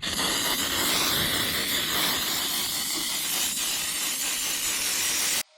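Aerosol can of CRC lubricant spraying in one long continuous hiss, which cuts off suddenly near the end.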